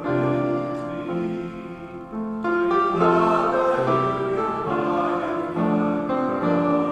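Congregation singing a hymn with instrumental accompaniment, in long held notes. It grows louder about two and a half seconds in, as a new verse begins.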